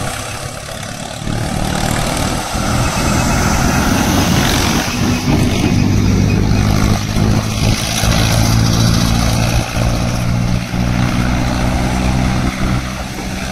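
Road traffic mixed with a Mahindra Arjun 555 tractor's diesel engine working under load as it pulls one loaded trailer; a tanker truck and cars pass close by. A steady engine drone sets in about five seconds in.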